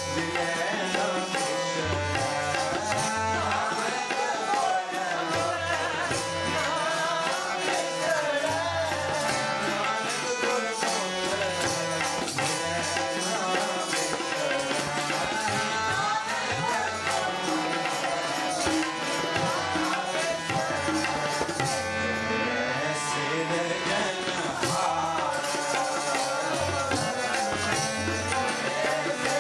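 Sikh kirtan: harmoniums holding and moving through chords under a tabla rhythm, with voices singing the hymn in a wavering melody.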